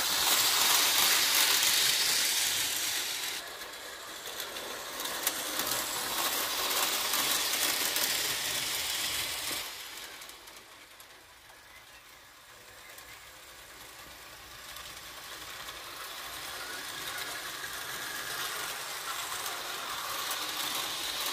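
Märklin HO model Santa Fe F7 diesel locomotive and its freight cars running on metal track, a steady mechanical whir of the small electric motor and wheels. It is loudest at first, fades to its quietest about halfway through as the train moves away around the loop, then builds again as it comes back near.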